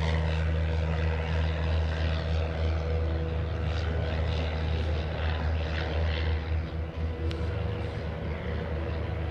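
Light single-engine propeller airplane droning steadily as it flies past low, growing slightly fainter toward the end.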